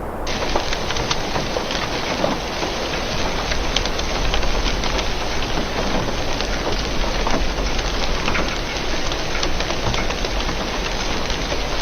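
Heavy rain falling, a dense steady hiss with many small sharp hits of drops striking a hard surface.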